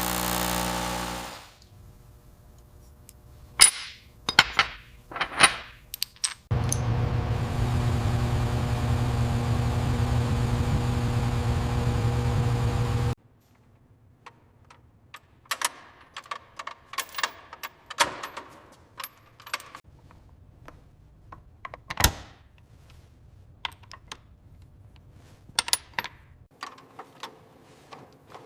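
Workshop tool sounds: scattered clinks and taps of metal tools being handled, and in the middle a small electric power tool running steadily for about six seconds, starting and stopping abruptly.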